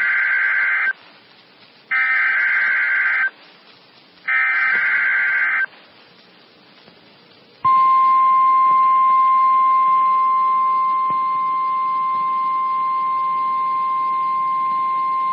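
Three buzzy, warbling bursts of EAS SAME header data, each about a second and a half long with a second's pause between, then after about two seconds the steady single-pitch 1050 Hz NOAA Weather Radio warning alarm tone, held without a break. It is heard over a streamed weather-radio receiver.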